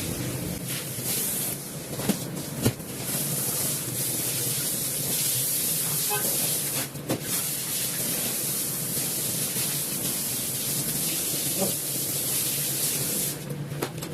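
Water spraying hard onto a rug in a steady hiss, as in a pressure-wash rinse. It breaks off briefly midway and stops near the end, with a couple of sharp knocks in the first few seconds.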